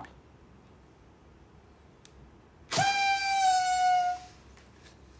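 A party horn blown once, a single toot lasting about a second and a half that sags slightly in pitch as it ends. A short click comes right at the start.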